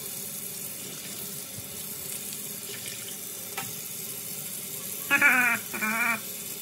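Kitchen tap running steadily, its water splashing over lobsters being rinsed in a stainless steel sink. About five seconds in, a person's voice sounds twice, briefly, louder than the water.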